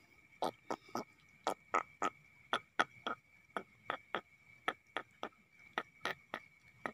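A run of sharp clicks or taps, about three a second and unevenly spaced, over a steady thin high-pitched whine in the background.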